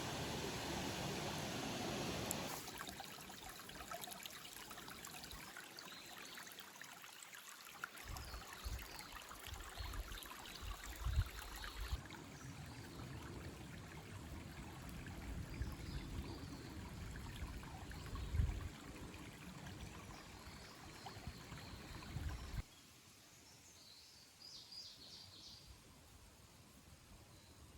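Running river water, a steady rush that drops off sharply a couple of seconds in and again near the end. In the middle stretch there are low thumps under the water sound, and near the end a bird gives a few short chirps.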